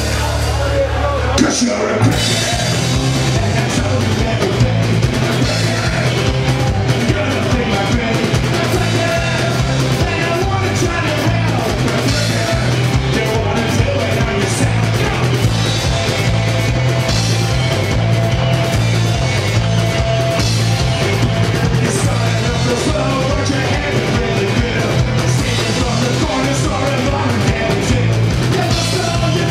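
Live rock and roll band playing: drum kit, bass guitar and acoustic guitar with singing. A held low note breaks into a steady driving beat about two seconds in.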